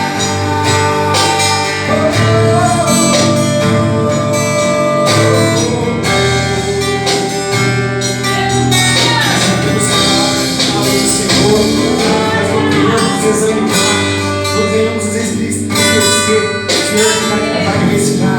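Gospel song's instrumental passage led by guitar, with a voice singing wordless lines in places.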